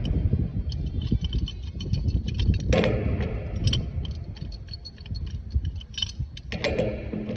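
Many light metallic clicks and clinks, irregular and closely spaced, over a steady low rumble, with two brief louder rustling patches about three seconds in and near the end.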